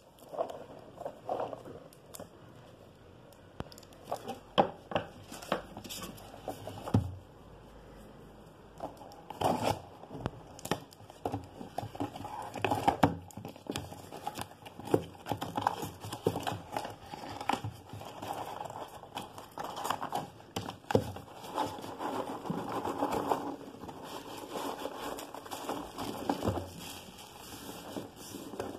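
Cardboard shipping box being unwrapped and opened by hand: clear plastic film crinkling and tearing, cardboard flaps and foam packing peanuts rustling, with irregular sharp taps and knocks.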